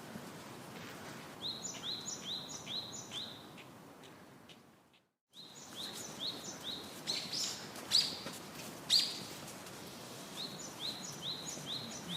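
A bird calling in runs of four or five short, high notes, about two and a half a second, heard three times, with two louder sharp calls in the middle, over a steady outdoor hiss. The sound drops to silence briefly near halfway, as at a cut.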